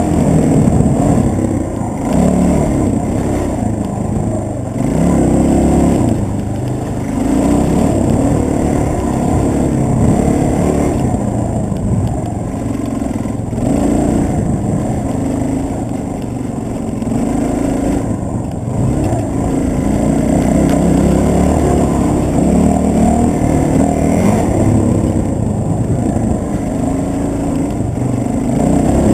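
Dirt bike engine pulling hard up a steep dirt trail, revving up and down over and over as the throttle comes on and off.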